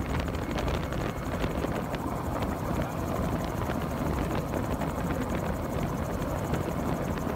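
Gyrocopter in flight: steady engine and rotor noise heard from inside the cockpit.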